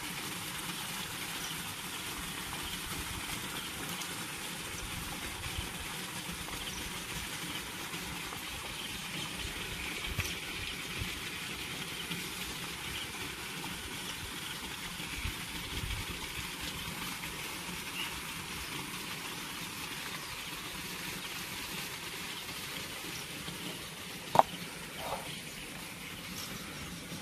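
Steady outdoor background noise with faint high chirps, broken by one sharp knock and a smaller one just after it near the end.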